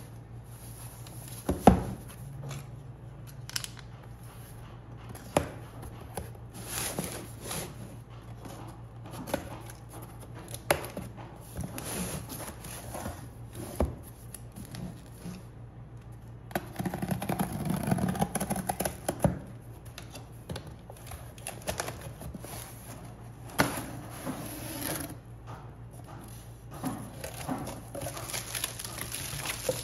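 Hands handling an iPad Pro's retail box and packaging: scattered taps and knocks, with a stretch of rustling and tearing a little past halfway, over a steady low hum.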